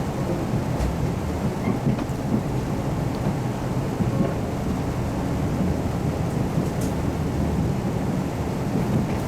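Cabin noise of a KiHa 181 series diesel railcar under way: a steady low rumble of engine and wheels on rail, with a few faint clicks.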